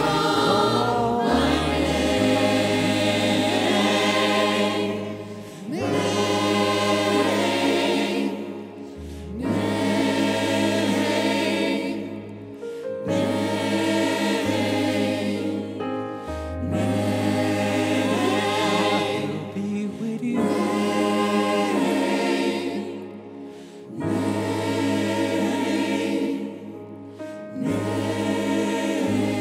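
Gospel choir singing over a steady low bass accompaniment, in phrases that pause briefly every three to four seconds.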